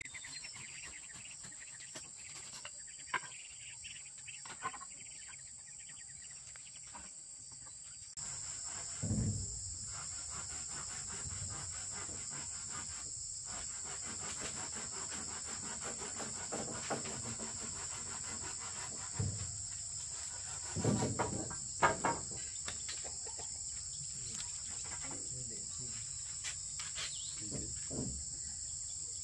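Insects chirring steadily in a high, even band, which steps up in level about eight seconds in, with a few dull knocks and thumps now and then.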